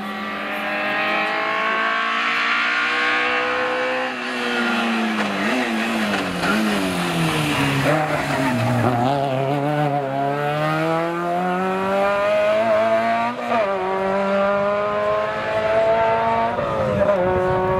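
Classic rally car's engine revving hard on the approach, then lifting off about four seconds in and falling in pitch with throttle blips as it brakes into a tight bend. Tyres squeal through the corner, then the engine pulls away, rising in pitch, with a short dip at a gear change.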